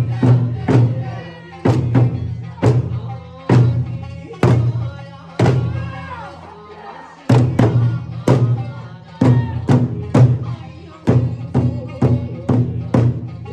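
Eisa taiko drums struck in unison about once a second, the strikes coming twice as fast from about seven seconds in, under an Okinawan folk song with singing.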